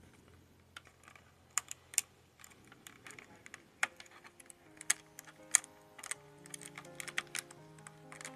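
Thin clear plastic blister tray crackling and clicking as small plastic accessory hands are pried out of it: irregular sharp clicks, several of them loud, with quiet background music coming in about halfway through.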